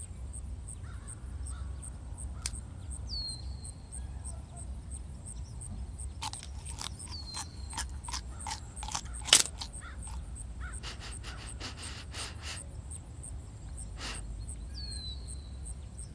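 Animated-film forest ambience: a steady low rumble with a faint, evenly repeating high ticking, three short falling bird calls, and a run of sharp clicks in the middle, the loudest about nine seconds in.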